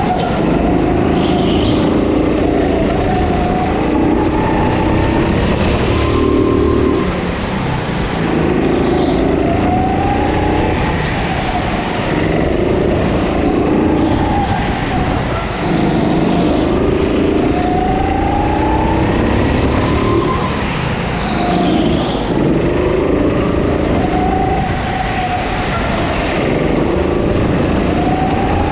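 Go-kart engine heard from on board, revving up along each straight and dropping off into the corners, again and again in a steady rhythm of laps.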